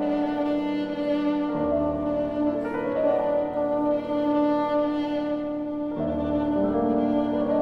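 Contemporary chamber music: violin, bassoon and piano playing an instrumental passage of held notes, with a low bass line that comes and goes.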